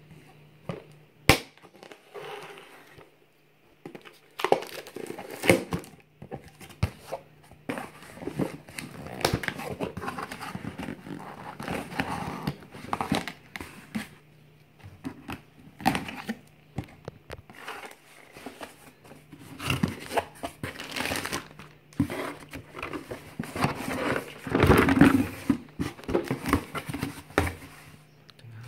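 Cardboard shipping box being opened by hand: a sharp click about a second in, then the packing tape slit and torn and the cardboard flaps and packing scraped, rustled and crinkled in uneven spells, busiest near the end.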